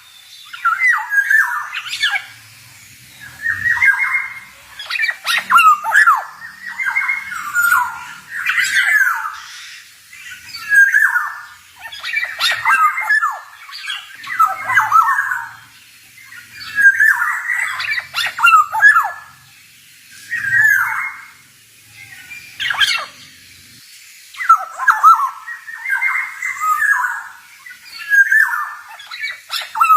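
Black-naped oriole (kepodang) singing: loud, fluting phrases with quick rising and falling slides, repeated every couple of seconds with short pauses between them.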